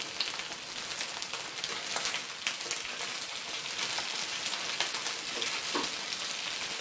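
Chive cakes sizzling as they shallow-fry in hot oil in a nonstick pan: a steady hiss dotted with many small crackles and pops.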